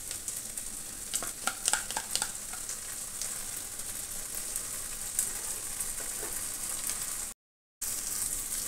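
Sliced onions frying in oil and butter in a kadai, a steady sizzle, with a few light knocks and scrapes about 1 to 2 seconds in as paste is tipped in from a bowl. The sound cuts out for a moment near the end.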